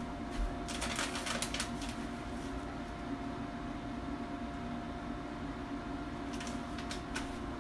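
A steady low hum with a thin steady tone above it, like a running kitchen appliance, with a few light clicks and clatters about a second in and again near the end.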